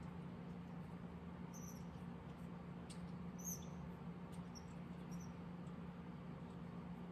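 Faint, short high-pitched squeaks, coming every second or so, and a few light ticks over a steady low hum.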